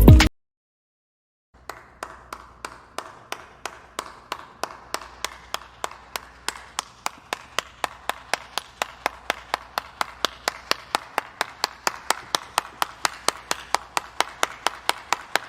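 Steady run of sharp ticks, about two and a half a second at first and speeding up to about four a second, over a faint low hum.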